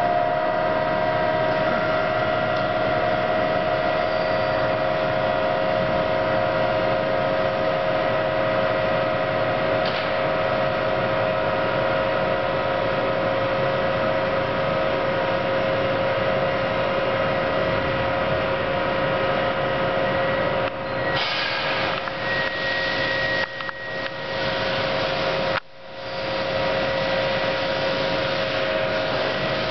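Econo Lift scissor lift's hydraulic pump unit running as the platform raises, a steady hum with a high whine. About three-quarters through it falters and cuts out briefly, then runs steadily again.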